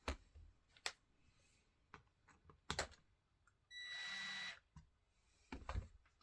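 Faint handling clicks and knocks as a Stihl Smart Connector is fitted onto a small chainsaw's plastic housing. Near the middle there is a short rasping buzz with a whine in it, under a second long.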